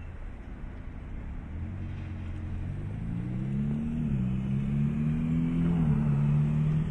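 Camouflaged Ferrari test mule's engine passing on track, growing louder as it approaches. Its note climbs in pitch and dips sharply twice, then holds steady at its loudest near the end.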